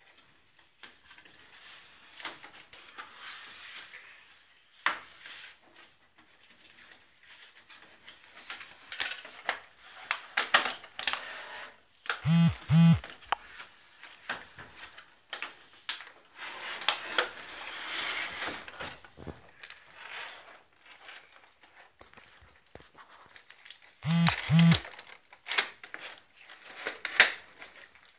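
Packaging being handled and opened: cardboard and plastic rustling with irregular clicks and tearing. Twice, about halfway through and near the end, comes a short double buzz.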